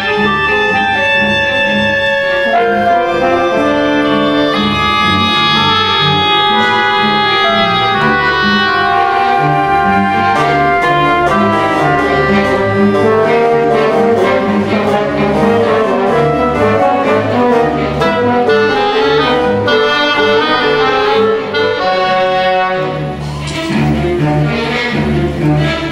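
Symphony orchestra playing, with brass to the fore over strings in held, shifting chords; the sound briefly thins and dips in loudness about 23 seconds in before the full orchestra comes back.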